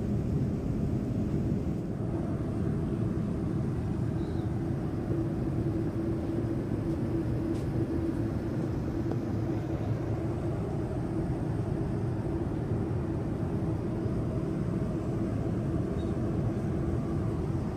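Airliner cabin noise: a steady low rumble of engine and airflow with a constant hum running through it.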